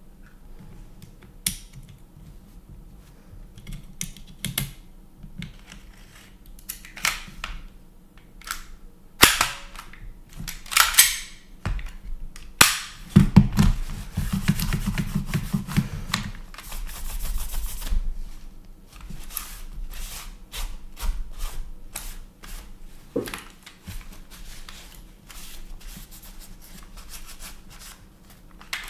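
Gen4 Glock airsoft pistol being handled during maintenance: scattered sharp mechanical clicks and several short sliding scrapes of its metal and plastic parts.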